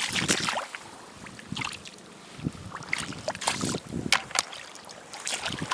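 Irregular clicks, taps and wet squelches of someone moving across a muddy tidal flat and picking up razor clams by hand.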